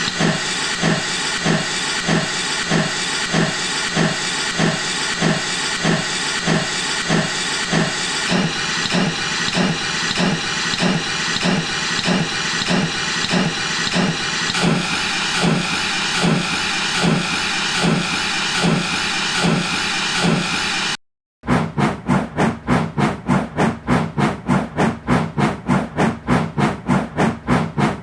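Steam locomotive chuffing steadily over a constant hiss of steam, with even exhaust beats at a slow working pace. About two-thirds of the way through the sound cuts out abruptly. A second recording follows, with the chuffs coming faster, about three or four a second.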